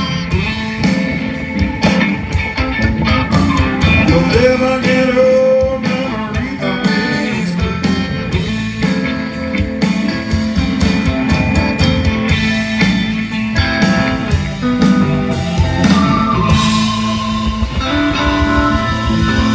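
Live blues-rock band playing: electric guitars over bass guitar and drums, with a sustained, bending guitar note about four seconds in.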